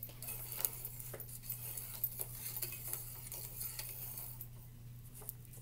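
Light clicking and scraping of a teaching clock's hands being turned by hand to set a time, with a steady low electrical hum underneath.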